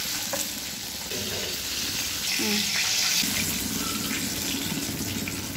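Hot oil sizzling with a steady hiss as deep-fried battered chicken is lifted out of the pan on a slotted spoon, the hiss briefly louder about two to three seconds in.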